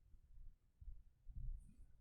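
Near silence, with only a faint low rumble of room tone.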